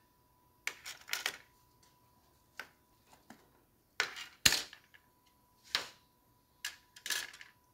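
Sharp metal clinks and knocks, about ten at irregular intervals, as wire meat hooks are pulled out of a smoked pork roast and handled against a metal sheet pan; the loudest knock comes about halfway.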